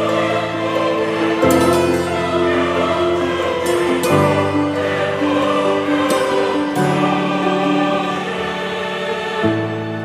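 Background music of slow, held chords that change every second or two.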